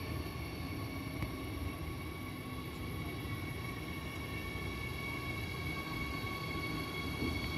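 Electric regional train approaching on the station track: a low rumble of running gear with a steady high whine, growing a little louder near the end.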